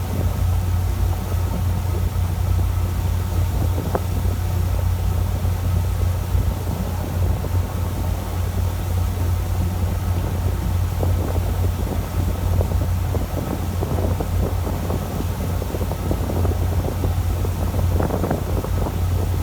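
Fishing boat's engine running steadily with a low drone, with wind buffeting the microphone.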